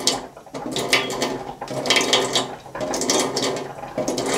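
Metal spoon clinking against a dish, spoonful after spoonful, as cold water is measured out by the spoon for gelatine; a cluster of clinks comes roughly once a second.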